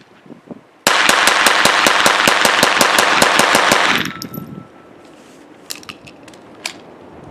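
Kel-Tec P17 .22 LR pistol fired in a fast string of shots, several a second, for about three seconds before stopping. A few faint clicks follow.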